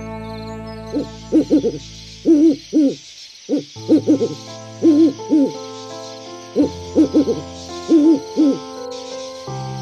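An owl hooting in repeated runs of two or three short hoots, over a sustained background music chord.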